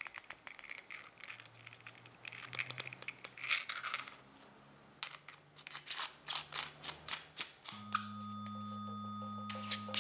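A riflescope turret and its screw cap are turned by hand, with soft scraping and handling at first and then a quick run of small clicks, about six a second, between five and seven and a half seconds in. Near the end a steady low music tone comes in.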